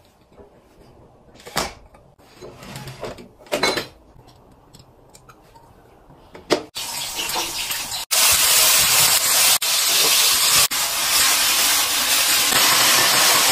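Shredded vegetables sizzling in hot oil in a wok as they are stir-fried: a loud, even hiss that sets in about seven seconds in and grows louder a second later. Before it come a few light clicks and knocks of a pot lid and cookware being handled.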